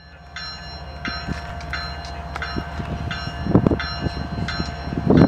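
A railroad crossing bell clanging steadily, about one and a half strokes a second, over the low rumble of approaching diesel locomotives that grows louder. A couple of low thumps come about halfway through and near the end.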